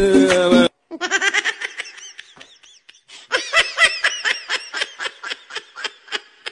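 Background music cuts off abruptly under a second in. High-pitched laughter follows in quick repeated "ha-ha" pulses, in two bouts with a short pause between them.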